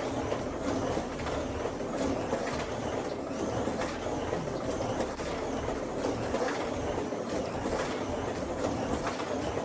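Vintage Estrela slot car with a small Parma electric motor running laps on its track: a steady whir and rattle as the motor drives the car and the guide rides over the track joints.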